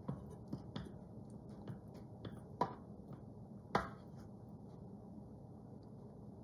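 A spoon clicking and tapping as chicken pieces are spooned onto a pizza: a few light taps in the first four seconds, the loudest two about two and a half and nearly four seconds in, then only a faint low hum.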